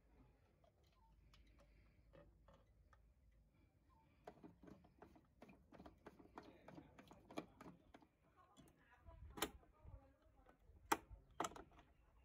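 Faint plastic clicks and ticks from a Lab-Box 120 film developing tank being handled. A quick irregular run of small clicks as the front agitation knob is worked, then a few sharper plastic clicks near the end as the lid is unclipped and lifted.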